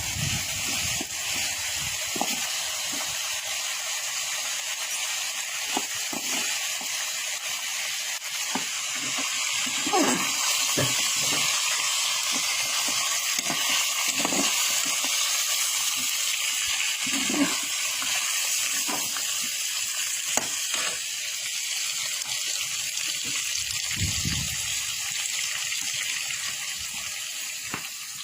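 Pork ribs sizzling over a barbecue grill: a steady hiss, with a few soft low thuds here and there.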